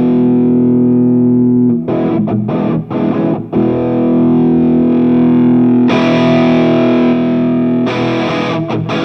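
Distorted electric guitar played through Saphue drive pedals and a cabinet simulator: long sustained notes, with shorter picked notes between them, then quicker choppy picking near the end.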